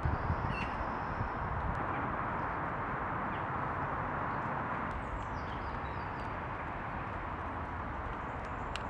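Outdoor park ambience: a steady distant roar, with a few faint high bird chirps above it. A couple of soft low knocks come right at the start.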